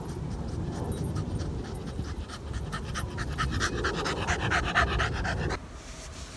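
West Highland White Terrier panting in quick, regular breaths after running to fetch a ball, over a low rumble. The panting grows stronger as the dog reaches the microphone and cuts off suddenly near the end.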